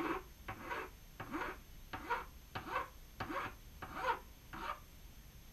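Hand strokes of a fine file over a zinc-alloy (Zamac) lathe half nut, a steady run of scraping strokes roughly two a second that stop near the end. The file is dressing burrs and easing the lead-in to the nut's threads.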